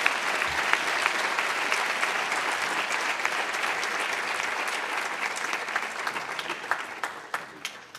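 Audience applauding steadily, thinning to a few separate claps near the end, then cutting off.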